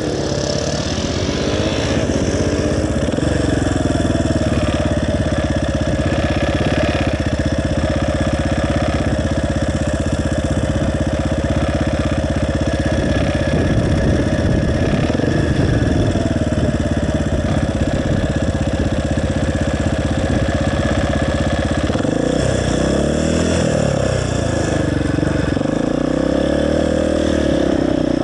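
Motorcycle engine running steadily, its pitch rising and falling a few times near the end as the revs go up and down.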